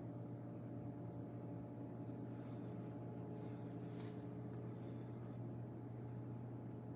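Steady low hum with faint, even higher tones over it: the room tone of the gym, with one faint tick about four seconds in.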